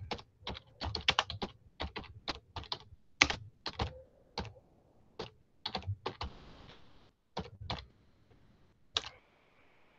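Typing on a computer keyboard: quick, irregular runs of key clicks that thin out to a last single click near the end.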